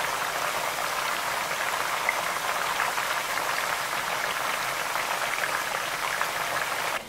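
Pork pieces frying in bubbling melted lard in a pot, a steady sizzling crackle; this is the pork being cooked in its fat for carnitas. It cuts off suddenly near the end.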